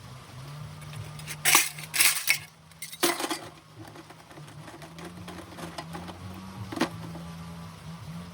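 Dishes and cutlery being handled in a kitchen sink during hand washing: a few loud clattering crashes in the first half, then a single sharp clink near the end.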